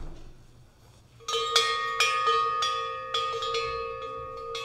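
A hanging metal bell rung by hand, starting a little over a second in. Its clapper strikes about ten times in quick succession, and the ringing tones overlap and sustain.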